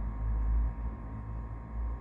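Low, steady rumbling drone with faint held tones above it.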